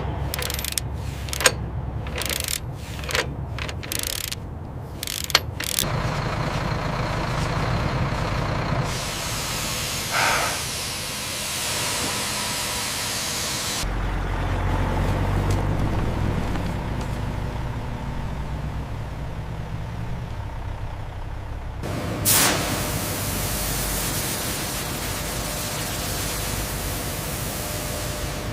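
Heavy sawmill machinery and log-handling equipment running, in several short sections that cut abruptly from one to the next. Sharp knocks come in the first few seconds, and there are two short hissing bursts like air being released.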